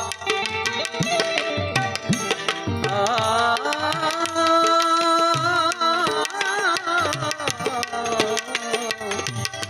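Gujarati bhajan music: tabla playing a steady rhythm under a sustained, wavering melody line between the sung verses.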